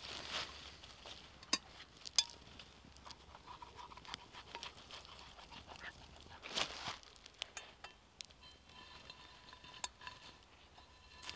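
Cutlery clinking and scraping on a plate while eating, with a few sharp clicks.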